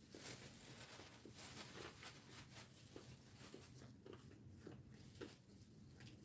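Near silence with faint, irregular soft taps and rustles of plastic-gloved hands working cooked rice onto a sheet of laver on a bamboo mat.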